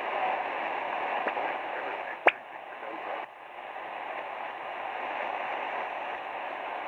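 DeepSDR 101 receiver tuned to 14.194 MHz on the 20 m band, giving steady band-noise hiss in SSB between calls, with one sharp static click a little over two seconds in.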